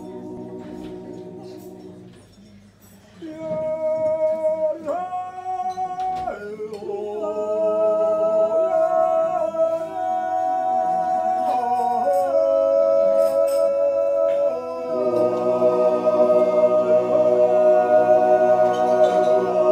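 Men's choir singing an Appenzell Naturjodel, a wordless yodel of long held notes: one chord dies away about two seconds in, then after a short pause a lead voice takes up high held notes that step from pitch to pitch over the others' sustained chord. The chord grows fuller about 15 seconds in.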